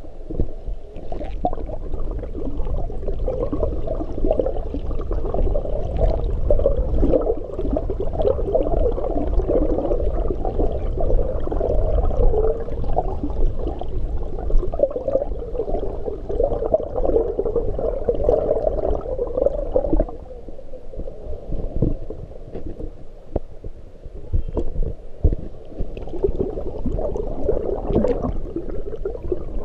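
Muffled underwater rumble and gurgling of pool water picked up by a submerged camera, with the dulled churning of a swimmer's kicks and strokes passing by. It drops quieter for a few seconds about two-thirds of the way through, then builds again.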